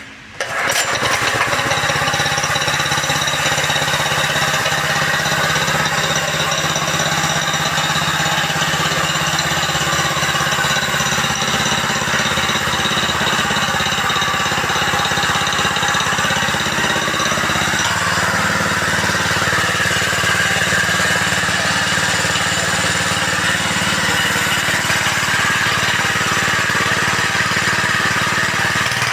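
Tsuzumi TX200 196 cc single-cylinder air-cooled four-stroke petrol engine of a power trowel, recoil-started and catching within the first second, then running steadily. Its tone shifts a little over halfway through.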